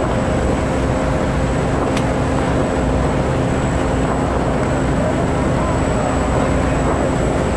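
A passenger ferry's engines running steadily under way, a constant low rumble with a steady hum, mixed with wind and water rush.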